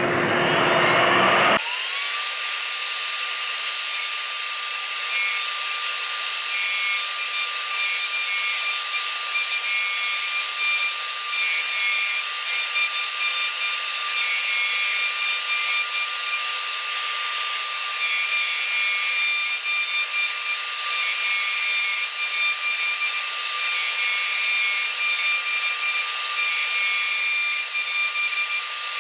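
Router spindle of a woodworking routing machine spinning up with a rising whine, then running with a steady high whine as it cuts a round hole into a wooden block, under the hiss of the dust extraction.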